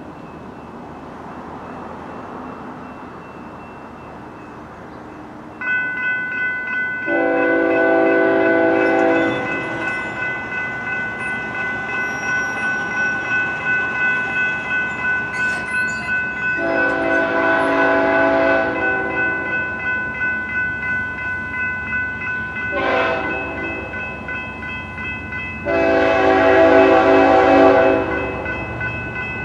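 BNSF diesel freight locomotive horn sounding the grade-crossing signal, long, long, short, long, as the train approaches. A bell rings steadily from about six seconds in, over the rumble of the train.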